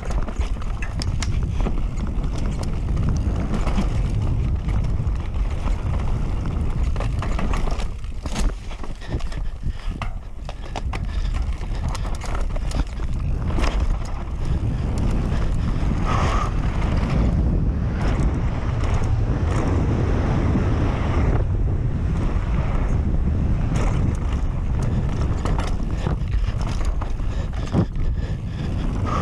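Canyon Sender downhill mountain bike at race speed on a dry dirt trail: a steady rumble of knobby tyres, with frequent sharp knocks and rattles from the bike as it hits roots and bumps. Heavy wind rushes over the camera microphone.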